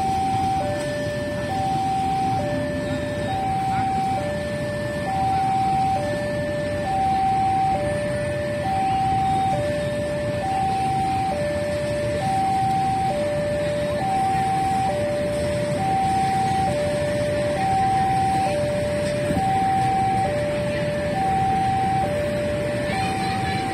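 Railway level-crossing warning alarm sounding a steady two-tone high–low chime, about one pair every two seconds, while the crossing gate is closed for a passing train. A low rumble of traffic runs underneath.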